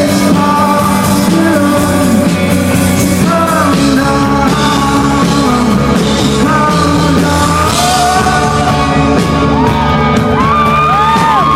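Rock band playing live with a male lead singer, loud and continuous.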